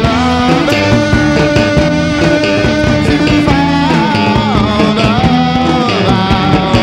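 Rock music: electric guitar holding long notes, some wavering, over a steady drum beat.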